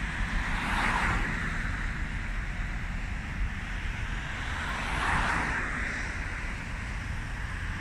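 Road traffic passing close by: two vehicles swish past, the first about a second in and the second about five seconds in, over a steady low rumble.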